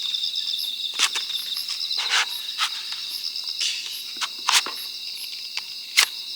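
Crickets chirping in a steady, high, pulsing trill, with scattered sharp snaps and clicks close by, loudest about a second in and again near the end.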